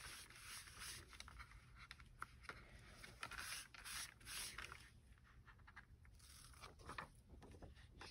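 Faint scraping of a foam sponge rubbed over a sheet of paper as mineral oil is worked into it, in short strokes in bursts with pauses between.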